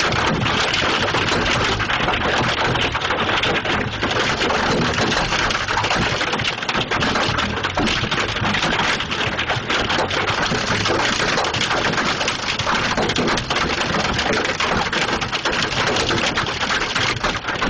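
Hailstorm: a steady, dense clatter of hail and heavy rain pelting down, with countless small impacts.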